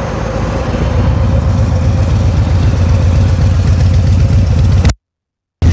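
Harley-Davidson Breakout FXBRS's Milwaukee-Eight 114 V-twin idling through a Jekill & Hyde all-stainless exhaust with catalyzer: a loud, thick, low pulsing note. The sound cuts out for about half a second near the end.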